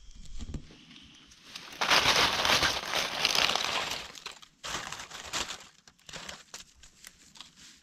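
Dry fallen leaves crackling and rustling as gloved hands dig through leaf litter to pull up a mushroom: a dense spell of crackling for about two and a half seconds, then scattered crackles.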